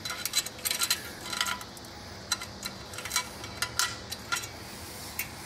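Small spring-steel locking clip handled against metal, giving light metallic clicks and clinks: a quick cluster in the first second and a half, then a few scattered ones.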